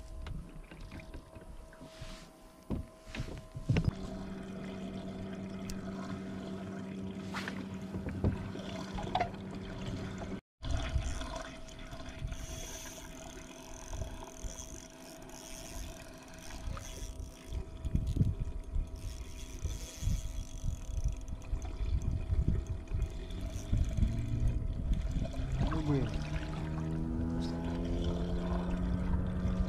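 Water lapping against a kayak hull and wind rumbling on the microphone, under a steady low hum, while a spinning reel is wound in. The rumble grows louder near the end.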